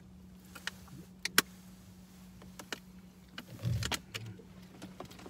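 Scattered sharp clicks and taps of things being handled inside a car cabin, one much louder about a second and a half in, with a short low muffled bumping near the end, over a steady low hum.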